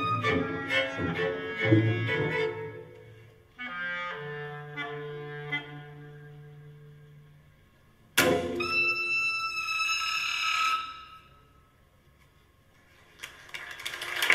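Clarinet and string orchestra playing the closing bars of a concertino: busy string playing, then held chords dying away. About two-thirds in, a sharp accented attack with a held high clarinet note fades out over about three seconds, the final note of the piece. After a moment of near silence, applause begins near the end.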